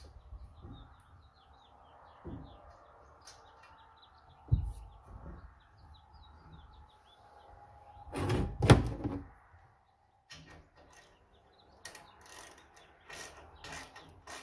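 Small birds chirping in the background, with scattered knocks. A loud clatter of handled metal about eight seconds in. After a brief dead gap, a run of sharp clicks and rattles.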